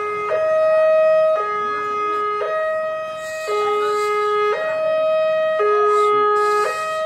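Electronic railway level-crossing alarm sounding a steady two-tone high-low warning, switching pitch about once a second. It signals that a train is approaching and the barrier is closed.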